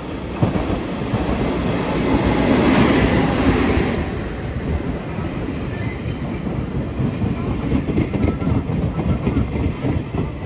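Taiwan Railways train running past, its noise swelling to a peak a few seconds in and then easing. In the second half the wheels clack rhythmically over rail joints.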